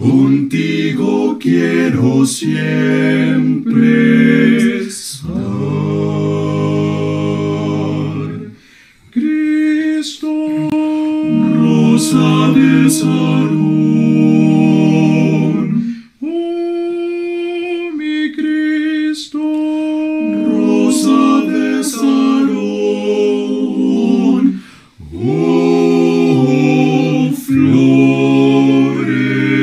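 Male vocal quartet of two tenors, a baritone and a bass singing a hymn a cappella in harmony. They hold long chords in phrases, with brief pauses between them.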